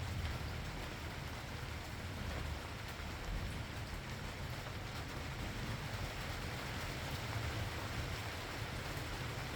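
Steady rainfall, a continuous even hiss with scattered drop ticks, over a steady low rumble.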